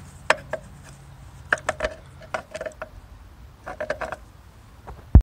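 Scattered light metallic clicks and clinks as a Mikuni carburetor is loosened and worked out of its rubber intake boot on a Honda CR125 two-stroke, with a sharper knock near the end.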